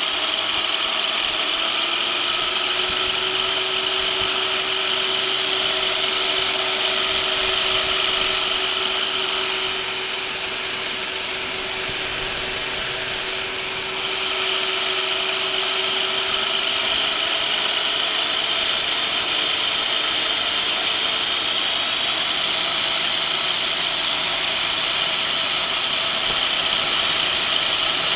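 Kärcher pressure washer's electric motor driving its opened-up pump, the swash plate working three pistons, running steadily at a reduced supply of about 60 volts. A steady whirring whine that rises slightly in pitch about a second in and again about two-thirds of the way through.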